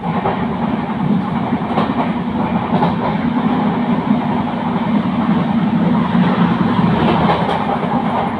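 A running passenger train heard from inside a coach's vestibule: a steady, loud rumble and hum of the moving carriage, with a few faint clicks from the wheels over rail joints.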